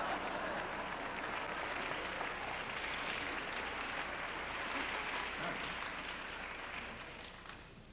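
Audience applauding and laughing, a steady crackle of many hands that fades out near the end.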